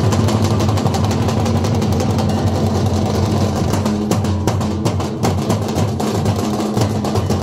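Street drum band playing large double-headed drums with sticks in a fast, dense, steady rhythm.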